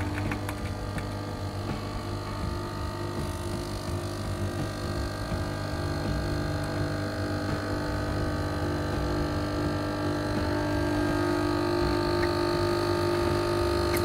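Arissto Happy Maker 2.0 capsule coffee machine's pump buzzing steadily as it brews a capsule, coffee just starting to run into the cup near the end.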